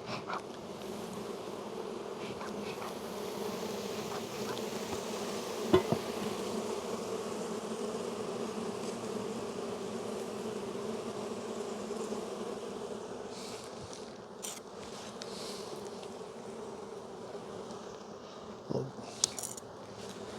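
A mass of honey bees from an opened, heavily populated hive buzzing in a steady hum. There is one sharp knock about six seconds in and a couple of smaller knocks near the end.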